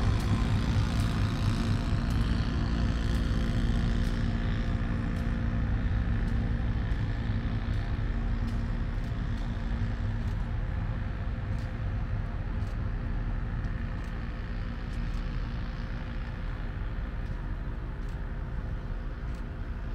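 Diesel engine of an EMD SW9 switcher locomotive, a 12-cylinder 567, running steadily under load as it hauls the train away, its drone slowly fading.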